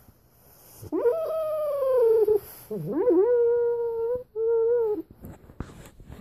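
Sleeping pit bull vocalising in a dream: three long, drawn-out whining calls, the first sliding slowly down in pitch and the next two held steady, the last one short. A few short huffing breaths follow near the end.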